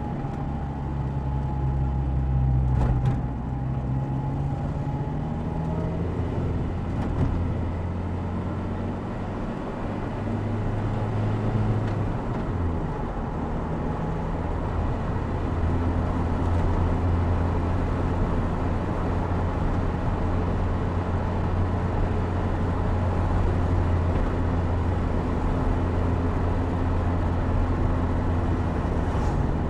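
Opel Speedster Turbo's mid-mounted turbocharged 2.0-litre four-cylinder running on the move, heard close up from just behind the seats of the open car over wind and tyre noise. The engine note changes pitch a few times in the first dozen seconds, then holds steady.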